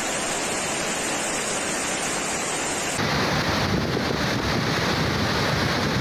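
Heavy rain and hail falling in a steady hiss. About three seconds in it switches abruptly to the rush of floodwater running down a street, with wind rumbling on the microphone.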